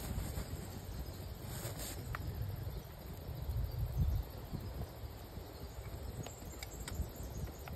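Faint outdoor background noise: a low rumble with a few small clicks, around two seconds in and again near the end.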